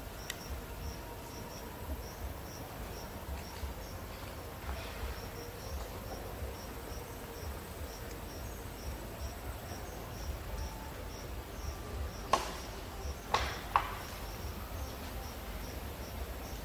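An insect chirping steadily: a short, high pulse repeated about two to three times a second over a faint low rumble. Three sharp clicks come close together about three-quarters of the way through.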